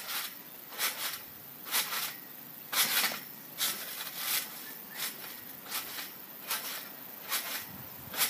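Backyard spring trampoline being bounced on by a jumper, with a short sound at each landing, a little under a second apart.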